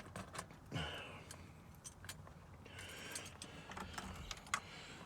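Keys jingling faintly as they are handled, with scattered light clicks and short rustles.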